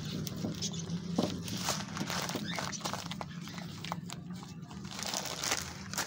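A plastic bag of mixed bird seed crinkling as the seed is poured out, the grains pattering and clicking irregularly into a small clay dish.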